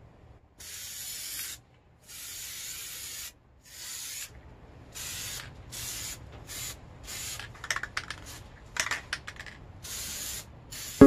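Aerosol can of Plasti Dip rubber coating spraying in about a dozen short hissing bursts with brief pauses between, as it coats an alloy wheel. A few light clicks come about eight to nine seconds in.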